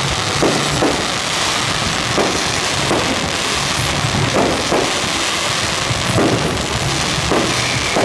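Fireworks display going off, a string of muffled bangs about once a second amid a constant crackling din, with fairground music underneath.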